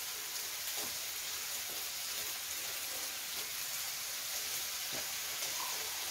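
Meat sizzling steadily on an electric tabletop raclette grill, with a few faint clicks of metal tongs turning the pieces.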